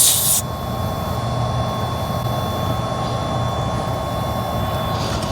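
Steady low hum of the 2023 Honda CR-V Hybrid idling. A hiss of air escaping at the tire valve, as the air hose is screwed onto the valve stem, cuts off about half a second in, and a short noisy rustle comes near the end.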